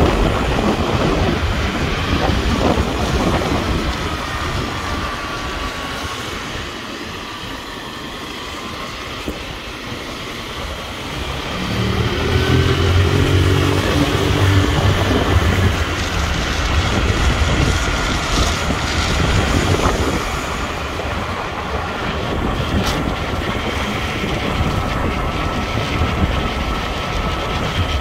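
A vehicle running: a steady rumble with a deep engine hum that grows louder from about twelve seconds in and eases off around twenty seconds.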